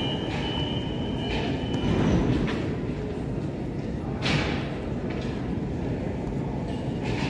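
Local train moving through the station with a steady low rumble. A steady high tone sounds in the first second or so, and a short hiss comes about four seconds in.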